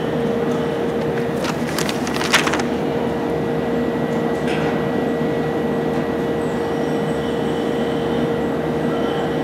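Steady mechanical hum with a constant whine over it, with a few brief clicks about two seconds in.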